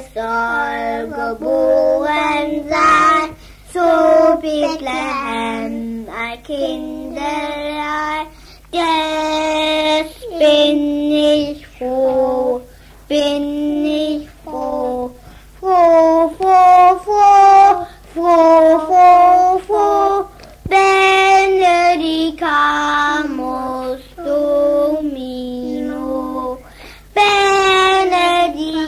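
A child singing a German Christmas carol without accompaniment, in held notes with short breaths between phrases. It is an early-1960s home recording on a Philips EL 3300 cassette recorder, with a steady low hum under the voice.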